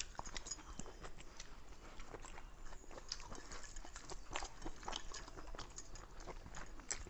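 People chewing and eating with their hands: faint, irregular wet clicks and smacks.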